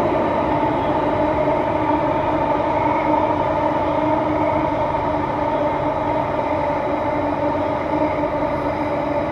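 Singapore MRT Circle Line train running through an underground tunnel at steady speed: a constant rumble from the wheels and track with a few steady tones held over it.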